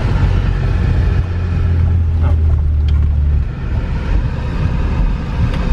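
BMW E46 engine and drivetrain heard from inside the cabin while driving on a wet road: a steady low drone that drops off and changes about three and a half seconds in, as the driver eases off or shifts.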